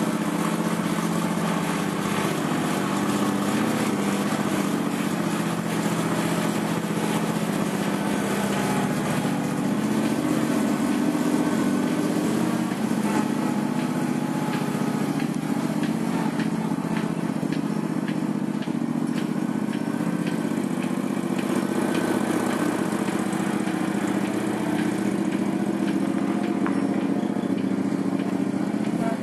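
Engine of a home-made articulated dump truck running at a steady pitch during a test run.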